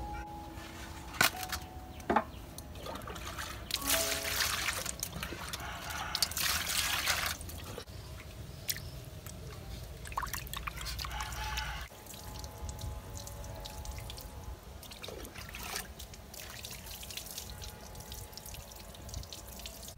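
Water splashing and pouring as a whole red tilapia is washed by hand in a metal basin of water. Two sharp knocks about a second apart come near the start.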